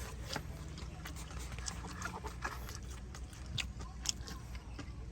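A person chewing a crispy battered fried chicken drumstick, with scattered irregular small crunches and clicks.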